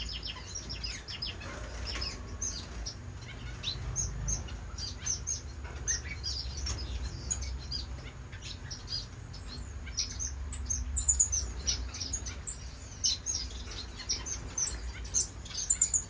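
A flock of small aviary finches chirping and peeping, many short high calls overlapping, with wing flutters as birds fly about the flight.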